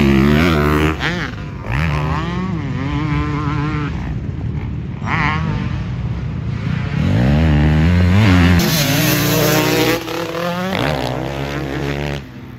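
Yamaha YZ250 two-stroke motocross bike ridden hard. The engine note climbs under throttle and drops back again and again as the rider shifts and rolls off.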